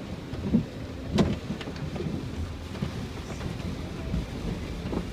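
Water spraying over a car in an automatic car wash, heard from inside the cabin as a steady, rain-like rushing, with a sharp knock about a second in.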